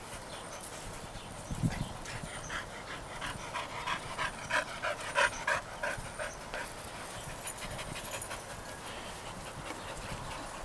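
A dog panting, about three or four quick breaths a second, strongest from about two to six seconds in, with one soft thump about a second and a half in.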